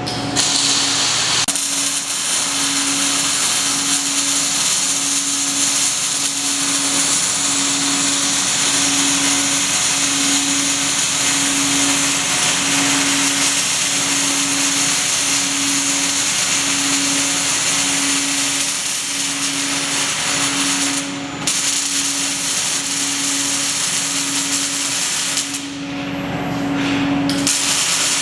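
Robotic MIG welding arc making a steady, loud hiss, with a low tone pulsing about once a second beneath it. The arc sound cuts out briefly twice near the end.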